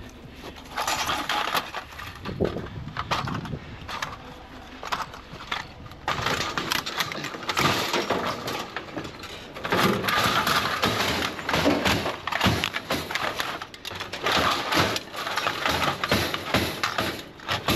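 Scrap metal and kerbside junk being loaded by hand into a wire-mesh cage trailer: a long run of clanks, knocks and rattles as poles and odds and ends are dropped in among the other scrap.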